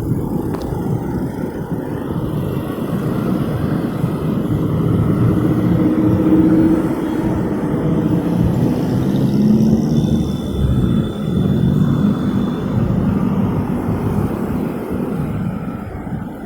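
Road traffic at a crossroads: a continuous rumble of passing vehicle engines and tyres, swelling loudest in the middle as vehicles go by close.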